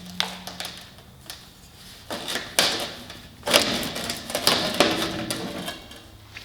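Clattering and scraping of metal parts and hand tools being worked: scattered clicks, then louder scraping bursts with sharp knocks from about two seconds in.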